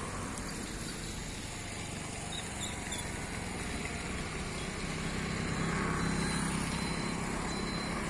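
Steady outdoor rumble of road traffic. A vehicle's low hum grows louder about five seconds in and eases off near the end.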